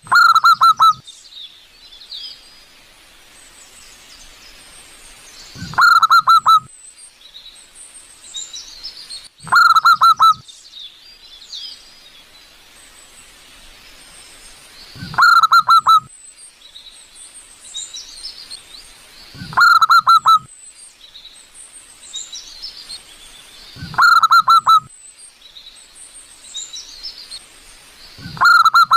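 Zebra dove (perkutut) cooing: seven short bursts of quick staccato coos, one about every four to five seconds. Other small birds chirp faintly and high-pitched between the bursts.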